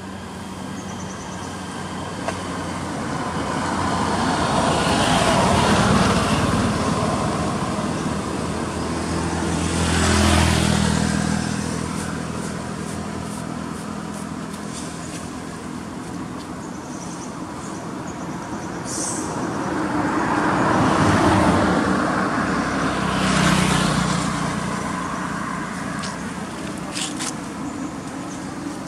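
Road traffic going past: a few vehicles pass one after another, each swelling up and fading away over a few seconds.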